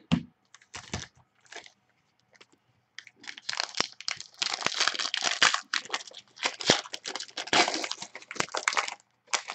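A few light taps as cards are set down, then a foil trading-card pack wrapper being torn open and crinkled in the hands for about six seconds.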